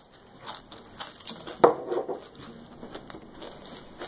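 A tortilla chip crunching as it is bitten and chewed: a few crisp crunches in the first two seconds, the loudest about one and a half seconds in, then quieter.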